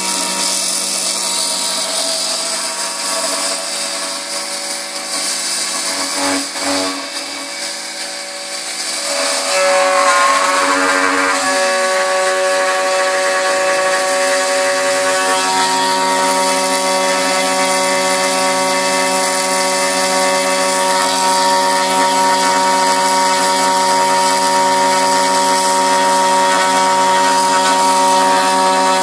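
Homemade high-frequency milling spindle on a CNC machine running and cutting 7075 aluminium: a steady whine of several tones over cutting hiss. About ten seconds in it grows louder, and the tones shift in pitch a couple of times.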